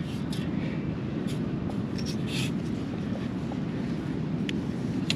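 Steady low rumble of ocean surf, with a few faint scrapes and taps as a stainless steel sand scoop digs into beach sand.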